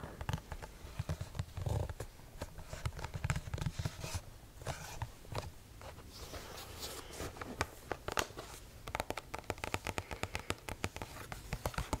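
Fingers tapping and scratching on the glossy cover of a Wildlife Fact File binder held close to the microphone. The taps are irregular, with a fast run of them about nine seconds in.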